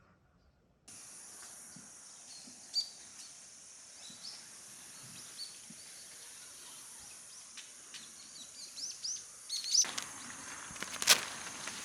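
Outdoor ambience that starts abruptly about a second in: a steady high hiss with birds chirping in short calls and quick sweeps. Near the end, footsteps crunch close by.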